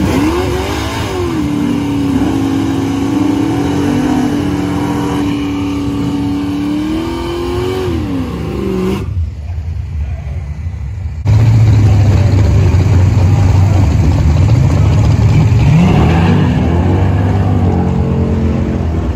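A 1979 Camaro's 350 small-block V8 revved up and held at high rpm for a burnout, dropping off after about eight seconds. After a cut, the engine rumbles loudly on the line, then revs up rising in pitch as the car launches, spinning its tyres off the line.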